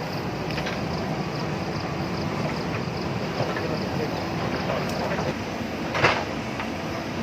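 JCB backhoe loader's diesel engine running steadily at work, with one sharp knock about six seconds in.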